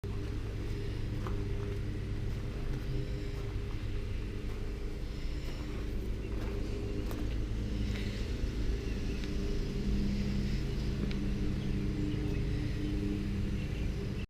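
A motor running steadily, a low rumble with a few faint clicks over it.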